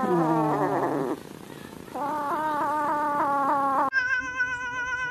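A cat yowling in two long calls with a wavering pitch. About four seconds in, a higher, steadier yowl follows.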